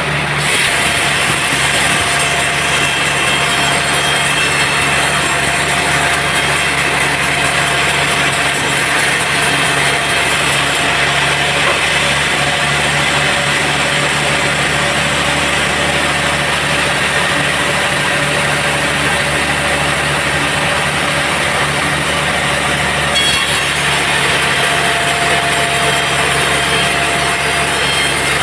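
Sawmill band saw cutting through a teak log: a loud, steady sawing noise of the blade in the hard wood over the saw's running motor, with a few steady tones held throughout.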